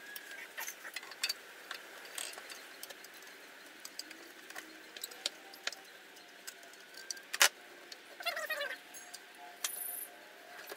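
Light metallic clinks and taps of a hand tool working at the motor pulley and mount, with one sharper knock about seven seconds in and a short rattle just after it.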